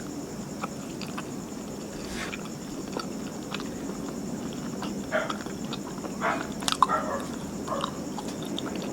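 Close-up chewing of soft martabak manis (terang bulan) pancake: scattered small mouth clicks throughout, with a few louder smacking mouth sounds in the second half.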